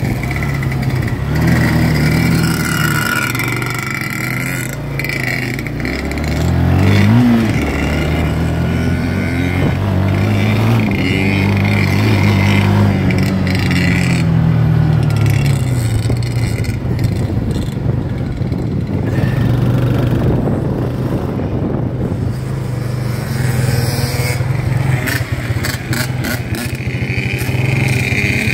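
Dirt bike engine running close up while riding, the revs climbing and falling over and over, with a sharp rev up and back down about seven seconds in.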